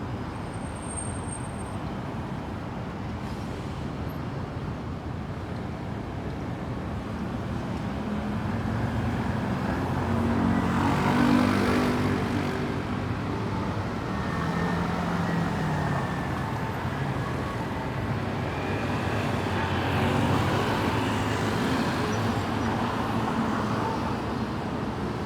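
Light city street traffic: a steady wash of road noise, with a vehicle's engine passing loudly about ten seconds in and another engine passing a few seconds later.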